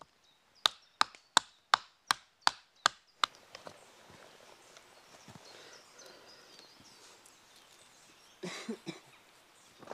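Small axe chopping into a wooden board held on a chopping stump: about eight sharp chops, roughly three a second, that stop after about three seconds. A brief rustle follows near the end.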